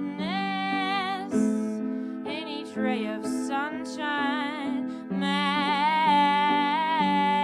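Live music: a woman singing long, wavering held notes over a piano accompaniment in a slow song.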